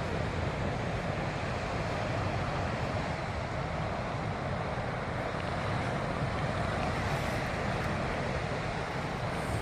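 Steady wind rumbling on the microphone over the wash of the sea.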